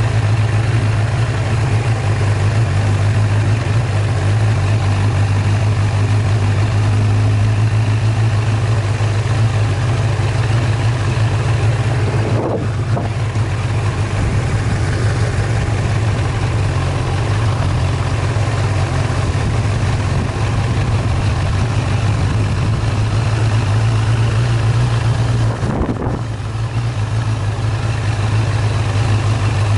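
Engine of a small vehicle running steadily with a low drone while driving along a dirt track. It eases off briefly twice, about twelve seconds in and again near the end.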